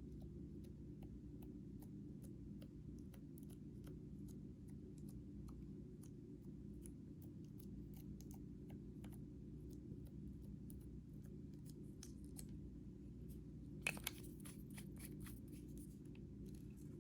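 Faint, irregular small clicks and crackles over a low steady hum, with a louder quick cluster of clicks about 14 seconds in.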